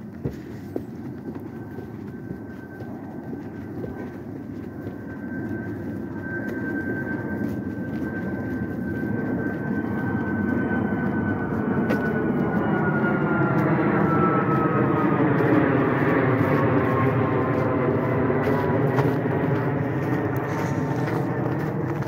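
A large passing vehicle's noise swells steadily over about fifteen seconds, with a high whine that slowly drops in pitch as it goes by. Footsteps on the trail sound underneath.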